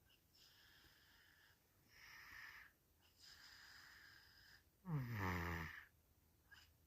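A toddler snoring through a blocked nose. Three soft, wheezy, hissing breaths come first, then about five seconds in one loud snore that falls in pitch and lasts under a second.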